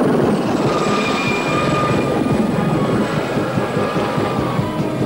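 Helicopter in flight: rapid rotor blade chop under a turbine whine whose pitch sweeps down and then back up as it passes.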